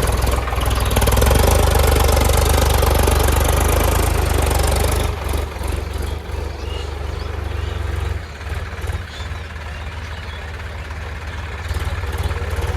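JCB 3DX backhoe loader's diesel engine running, loud and working hard for about the first five seconds, then dropping to a lower, steady run with a few short knocks.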